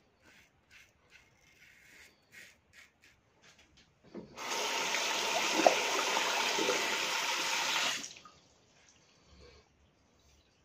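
Double-edge safety razor scraping through lathered stubble in short strokes, about two a second. About four seconds in, a tap runs into the sink for a few seconds, to rinse the razor, then is shut off suddenly.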